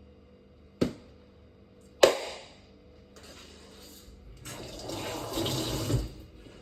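Water rushing, building over about three seconds and stopping abruptly, after two knocks, the second sharper and ringing briefly.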